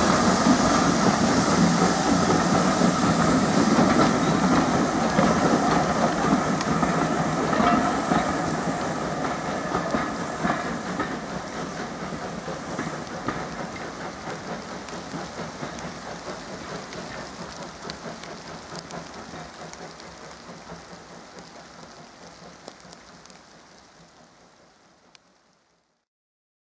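Steam-hauled train of vintage passenger coaches rolling away, wheels clicking over the rail joints, the sound fading steadily as the train recedes. It cuts off abruptly near the end.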